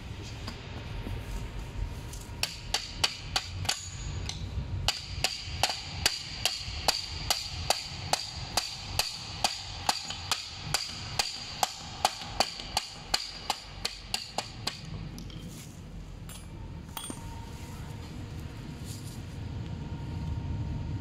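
Hammer tapping a metal hinge pin into an electric scooter's folding mechanism. It strikes in a quick, even series of about three taps a second, each with a slight metallic ring. The tapping starts a couple of seconds in and stops about two-thirds of the way through.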